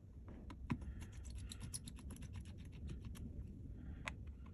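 Light, irregular clicks and taps of a small screwdriver and tools against a Samsung Galaxy A70's frame as the screws holding the back frame cover are taken out.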